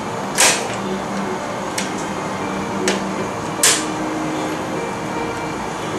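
Tennis racket string being woven and pulled through the strings on a stringing machine: two sharp zips or snaps, about half a second in and about three and a half seconds in, with a couple of fainter clicks between, over a steady background hiss.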